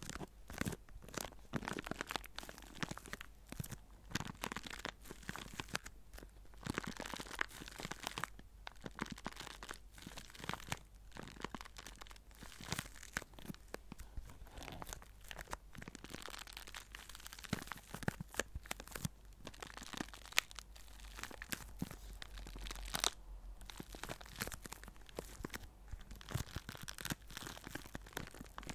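A small clear zip-lock plastic bag stuffed with white scraps crinkling and crunching as it is squeezed and rubbed between the fingers. There are a couple of brief pauses.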